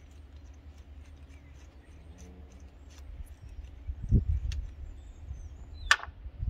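Hands and tools working in a diesel engine bay: a dull thump about four seconds in and a sharp click near the end, over a steady low rumble.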